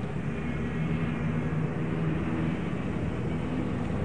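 Steady low mechanical rumble with a faint even hum, like a running engine.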